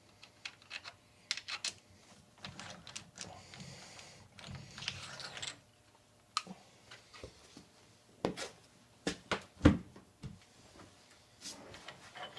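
Scattered clicks, clinks and knocks of metal parts and hand tools being handled at the bench, with some rustling in between. The loudest knocks come in a cluster about eight to ten seconds in.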